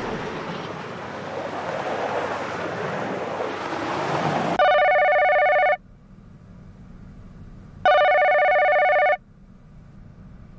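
A telephone ringing twice, each ring a steady electronic tone a little over a second long, with about two seconds between them. Before the rings there is a steady rushing noise.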